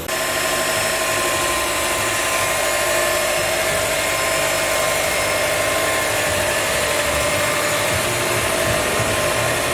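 The turbocharged 2.5-litre flat-four engine of a 2005 Subaru Legacy GT running steadily, with a steady tone held over an uneven low rumble.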